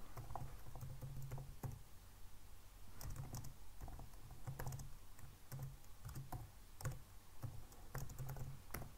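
Typing on a computer keyboard: irregular runs of keystroke clicks with short pauses between them.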